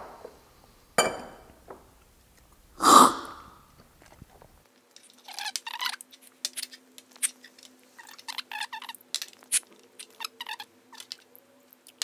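Coffee being loudly slurped from a small tasting cup, once sharply about a second in and once loudest near three seconds in. Then a run of small clicks and taps of cups and a glass server being handled.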